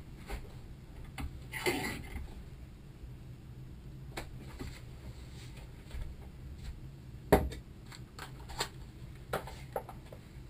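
Metal parts and tools being handled on a workbench: scattered clinks and knocks, a short scrape a couple of seconds in, and one sharper knock about two-thirds of the way through.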